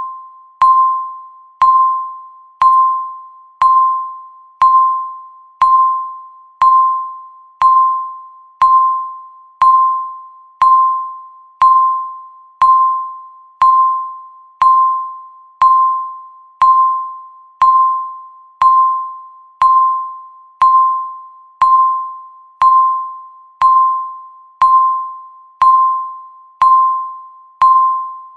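Countdown timer's electronic tick: a short ping with a sharp click, once a second, each dying away before the next.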